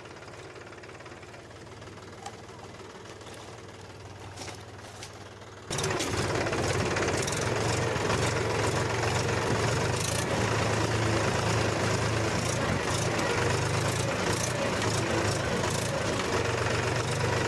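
Toy mini tractor running as it drives forward hauling a pipe: a steady mechanical engine-like drone with a low hum. It is faint at first and turns abruptly much louder about six seconds in.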